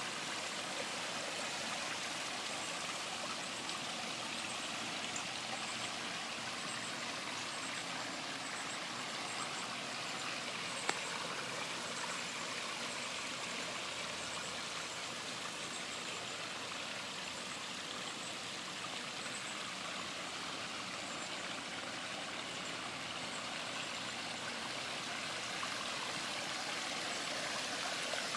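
Small pondless waterfall running, water splashing and trickling steadily, with a single brief click about eleven seconds in.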